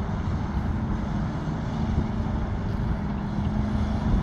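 Tractor-trailer's diesel engine running as the truck drives slowly across the lot, heard from a distance as a steady low rumble, with an even hum coming in about a second and a half in.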